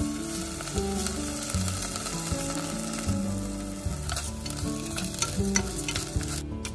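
Chopped shallot and mushrooms sizzling in a frying pan with round rice added to toast for risotto, a steady hiss of frying. Light clicks and scrapes of stirring come more often in the second half.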